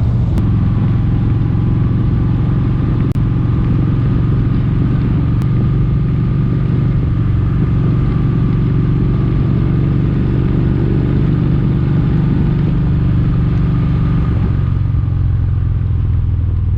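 Kawasaki Vulcan 1700 Vaquero's V-twin engine running at a steady cruise, with wind and road noise.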